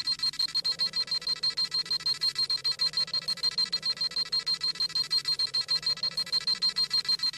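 Dragon Ball Z scouter sound effect: rapid electronic beeping, about nine pulses a second, over a high steady tone, the sound of the scouter scanning a power level.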